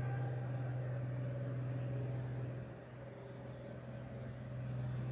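A steady low hum with faint room noise, dropping in level for about a second and a half past the middle before coming back.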